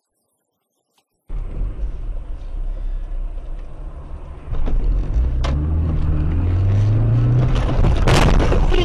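Car engine and road noise heard from inside the car. About three seconds in it gets louder, and the engine's pitch rises steadily as the car accelerates. A short loud noise comes near the end.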